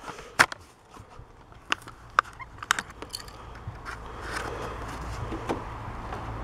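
Plastic blister pack of a carded Hot Wheels car crackling and clicking as the car is pried out, with sharp clicks in the first few seconds, then a softer steady rustle of plastic and card being handled.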